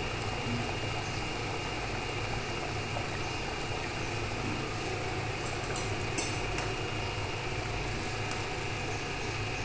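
A steady low motor hum, with a single brief click about six seconds in.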